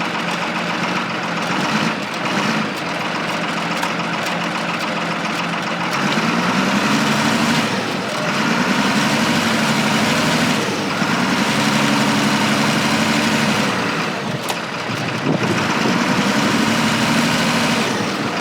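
Diesel engine of an articulated wheel loader running under the operator's control, its pitch rising, holding and dropping back about four times as the throttle is worked.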